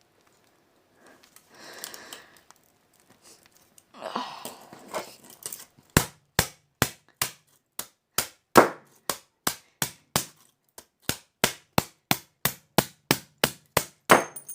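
Rustling and scraping for the first few seconds, then a long run of sharp, even knocks, about two a second, starting about six seconds in: hard strikes on phone parts being broken apart.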